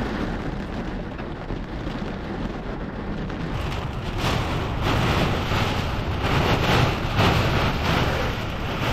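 Heavy thunderstorm rain and wind pelting the van, heard from inside the cabin. It is a dense, steady downpour that grows heavier about halfway through, with surging gusts.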